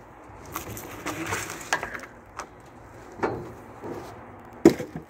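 Beech logs being shifted and thrown off a trailer. Wood scrapes and knocks against wood in the first couple of seconds, another knock comes a little after three seconds, and a thrown log lands with a loud knock near the end.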